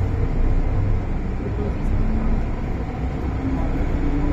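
Steady rumble inside a moving MTR Island Line M-Train car, heaviest in the bass, with a faint motor whine that rises slightly near the end.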